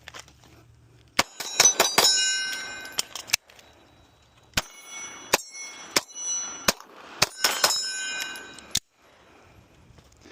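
Three quick strings of gunshots, each impact followed by a bright metallic ringing, the way steel targets ring when they are hit.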